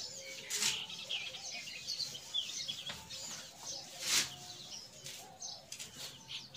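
Small birds chirping again and again in quick short notes, with a few brief swishes of a cloth duster wiping a whiteboard, the loudest about four seconds in.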